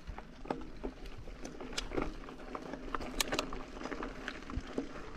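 Orbea Occam mountain bike riding over a gravel track: tyres crunching on loose stones, with scattered clicks and rattles from the bike.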